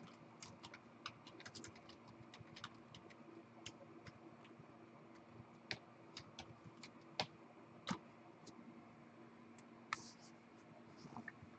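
Faint, irregular typing on a computer keyboard, with a few louder single clicks spaced out later on, over a low steady hum.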